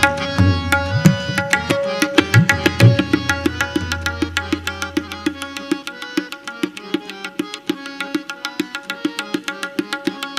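Tabla played in a fast stream of ringing strokes over the steady sustained tones of a harmonium. The deep bass drum's booming note holds and then fades out about six seconds in, leaving only the crisp strokes of the smaller treble drum.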